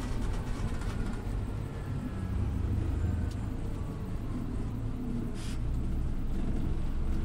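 Scania OmniLink city bus running, a steady low engine and drivetrain rumble. A faint falling whine fades out over the first couple of seconds, and a short hiss comes about five and a half seconds in.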